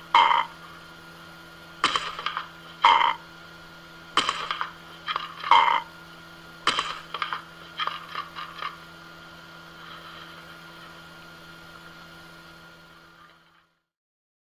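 Amazon parrot giving a series of short, harsh squawks and growls, in clusters over the first nine seconds or so, some with sharp clicks. A faint steady hum follows, then the sound cuts off near the end.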